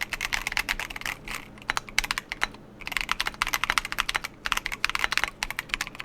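Fast typing on a Keychron Q1 Pro mechanical keyboard fitted with its stock foam: dense runs of keystroke clicks with a brief pause about two and a half seconds in.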